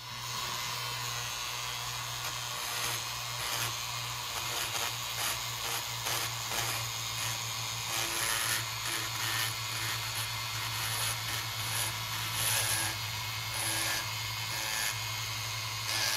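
Flex-shaft rotary tool running with a carbide burr lightly cutting the edge of an aluminium cylinder-head intake port: a steady motor hum under uneven rasping and scraping as the burr removes metal.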